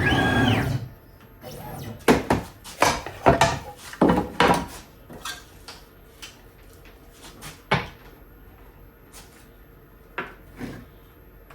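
Irregular wooden knocks and clunks from handling wood and tools. They come in a quick cluster between about two and five seconds in, then a few scattered ones later.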